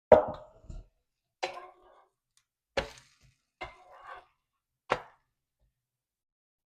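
Kitchen utensils knocking: five sharp knocks, each with a brief ring, spaced about a second apart, the first the loudest.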